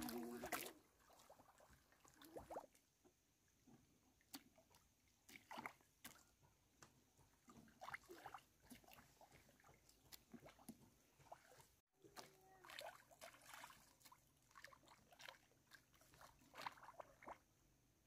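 Near silence with faint, scattered clicks and knocks.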